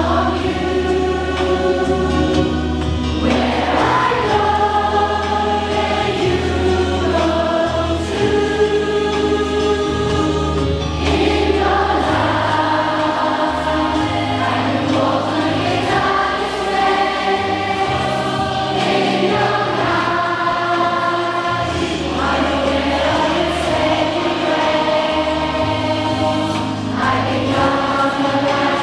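A group of children singing a Christian worship song in unison over an instrumental accompaniment with a sustained bass line.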